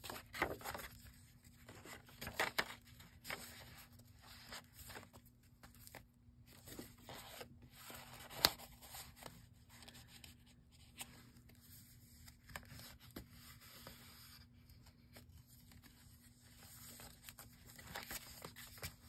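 Paper and cardstock rustling and sliding as the pages of a handmade paper journal are handled and flipped, with a sharp tap about eight seconds in.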